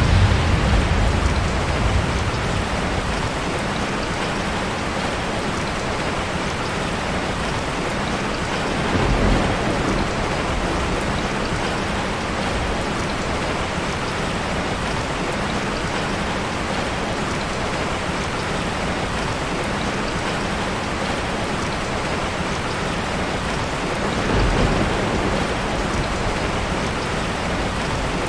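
Steady rain pouring. A low thunder rumble fades out at the start, another comes about nine seconds in, and a third near the end.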